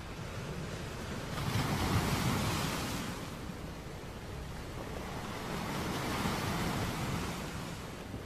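Waves washing onto a sandy beach, the surf swelling up twice and easing back, over a steady rush of wind noise.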